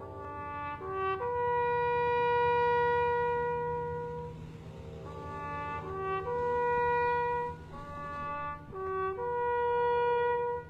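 A slow tune played on a wind instrument: long held notes linked by short, quick ornamental notes, over a steady low drone.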